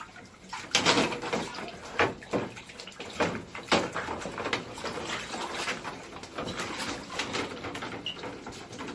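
Water splashing and running, broken by irregular clattering knocks, as dirty air-conditioner parts are washed.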